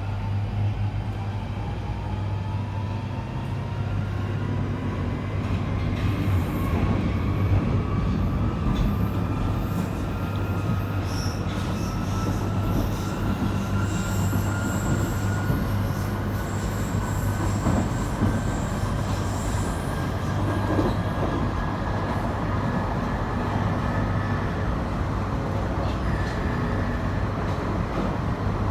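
London Underground 1995 stock train accelerating away from a station, heard from inside the car: the traction motor whine rises steadily in pitch over a constant rumble of wheels on track. A thin high squeal comes and goes midway.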